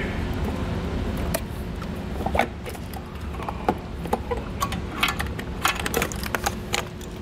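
Scattered plastic knocks, clicks and rattles as a plastic washer fluid reservoir with its long filler neck is worked out from behind a car's front bumper, with a busier run of clicks about five seconds in. A steady low hum runs underneath.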